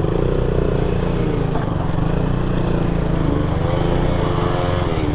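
Motorcycle engine running under throttle while riding, its pitch climbing and dropping twice as the revs go up and down.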